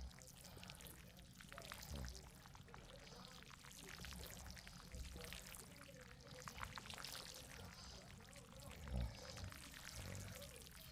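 Steady rain pattering as dense, fine ticks over a soft background hiss. A sleeping person's deep snore-like breath rises out of it about two seconds in and again, louder, near the end.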